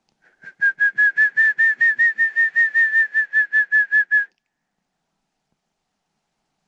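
Mountain quail call: a fast run of about twenty clear whistled notes, about five a second, all at nearly the same pitch, stopping abruptly after about four seconds.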